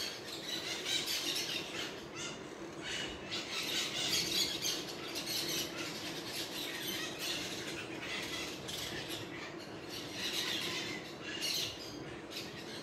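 Many small birds chirping and calling together in a dense, continuous chorus.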